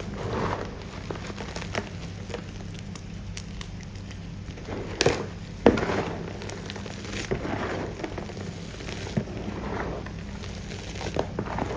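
Close-miked crunching and chewing of firm pasted gym chalk: irregular crisp crunches and crackles, the two sharpest and loudest about five to six seconds in.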